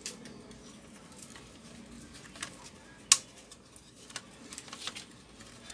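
Small clicks and taps as a Toshiba Satellite C640 laptop's cooling fan is handled and fitted back into place over its heatsink, with one sharp click about three seconds in.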